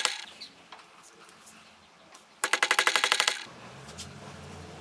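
Ratchet wrench clicking in a fast, even run, about a dozen clicks a second for about a second, near the middle. A faint low hum follows.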